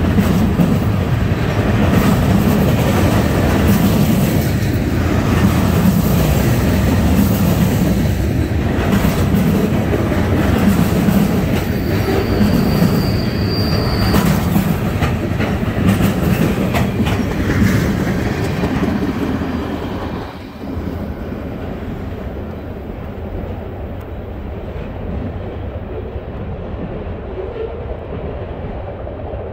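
Freight cars of a loaded trash train carrying waste containers rolling past close by, wheels clicking over the rail joints over a steady rumble, with a brief high squeal about twelve seconds in. The sound drops suddenly about twenty seconds in as the last car passes, then fades to a duller rumble as the train moves away.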